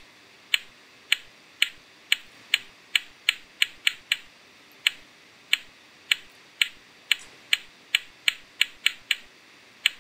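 Sharp, identical clicks at an uneven pace, about two or three a second and bunched closer together in places. They are the audio of a hippocampal place cell's action potentials in a neuron-firing animation, each click one spike.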